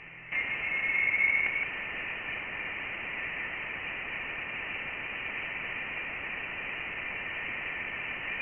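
Voyager 1 plasma wave instrument data from interstellar space, pitched down into audio: a steady static hiss, with a brief high whistle about a second in. The hiss is the sign of interstellar plasma brushing the spacecraft's sensors.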